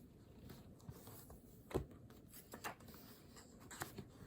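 Faint pen-on-paper writing at a desk: a few light, scattered taps and scratches.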